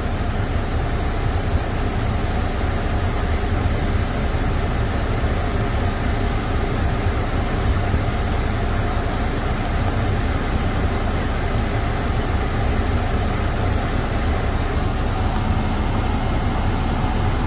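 International MaxxForce 13 inline-six diesel engine idling steadily, just after a completed forced DPF regeneration.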